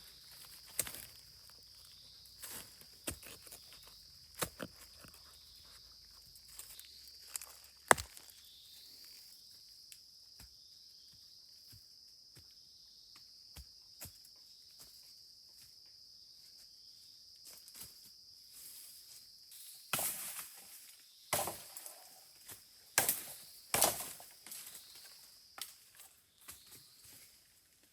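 Insects chirring steadily in a continuous high chorus, under scattered knocks and rustles of someone moving about and handling things, which grow louder and come closer together about twenty seconds in.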